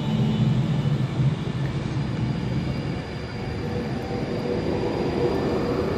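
Class 390 Pendolino electric train pulling out of the station, heard as a steady hum with rolling wheel noise on the rails; the lowest hum dies away about halfway through.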